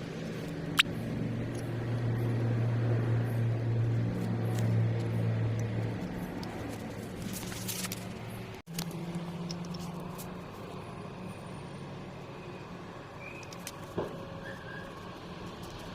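Cummins ISX15 inline-six diesel engine running steadily, with a sharp click about a second in. The strange noise comes from the gear train, which the owner puts down to poorly adjusted camshaft gears.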